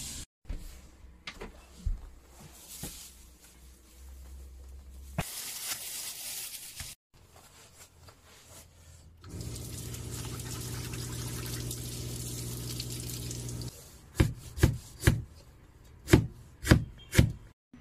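Tap water running into a stainless steel sink, later with a steady hum under it. Then a Chinese cleaver chopping ginger on a cutting board: about eight sharp chops near the end.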